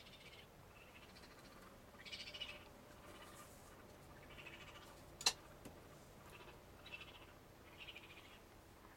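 Faint raccoon chittering calls, coming in short bursts every second or two, with a single sharp click about five seconds in.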